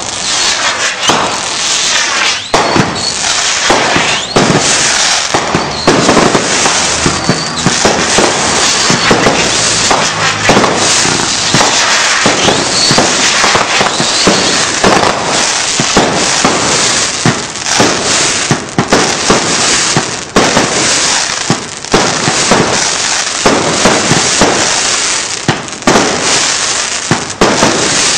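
Fireworks going off without a break: a loud, dense crackle of rapid pops and bangs.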